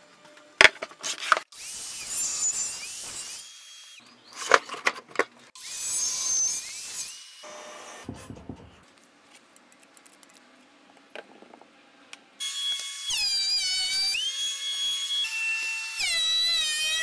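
DeWalt sliding compound miter saw crosscutting rough white oak, two short cuts with the blade whining, then a DeWalt benchtop thickness planer running with a board fed through on a sled, its motor pitch dropping and settling as the cutterhead takes the wood, twice.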